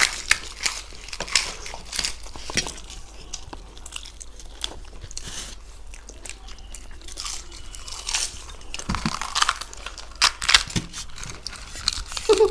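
Crunching and chewing of crisp, flaky khasta kachori: bites into the fried pastry and its shell being broken by hand, heard as irregular crackles and crunches.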